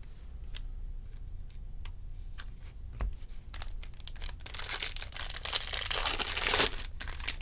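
Foil wrapper of a Topps baseball-card jumbo pack torn open by hand: a crinkling rip lasting about two seconds, starting a little past the middle. Before it, light scattered clicks and taps of cards being handled and set down.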